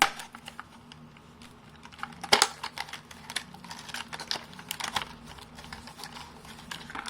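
Irregular sharp clicks, taps and snaps of a small SSD retail package being handled and opened, loudest about two seconds in.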